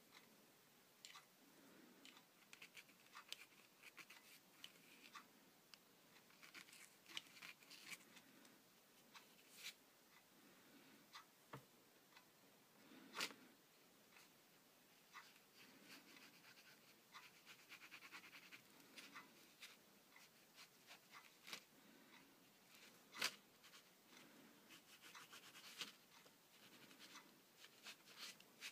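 Faint scratching of a ballpoint pen drawing on paper, in short strokes with pauses between, with scattered light clicks and taps.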